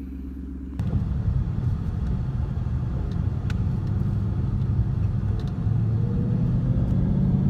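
Ford Mustang GT's V8 engine: a steady low hum at first, then from about a second in a louder low rumble of the car under way, building gradually with a slowly rising pitch near the end.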